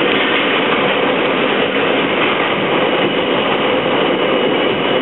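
R32 subway train running at speed through a tunnel, heard from inside the car: a loud, steady rumble of wheels on rail and running gear.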